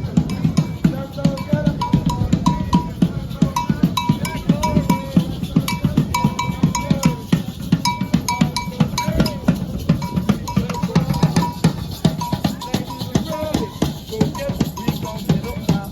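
Street-parade drumming: drums struck in a fast, dense, continuous beat, with a short bell-like tone repeating over it.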